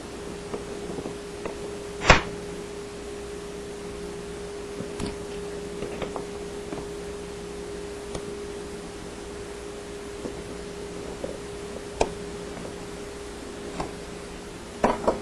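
Scattered sharp clicks and snaps of hose clamps being worked off a dishwasher's motor hoses, the loudest about two seconds in and another near twelve seconds, over a steady hum.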